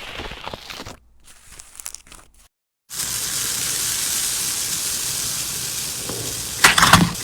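Slime being handled: faint crackles, then after a brief break a steady fine crackling fizz for about four seconds, then a few louder, sharper crackles near the end.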